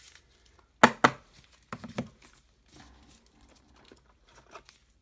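Trading cards and rigid plastic top loaders being handled, with cards slid into the sleeves. It makes short plastic rustles and clacks: two loud ones about a second in, a pair a little later, then fainter handling.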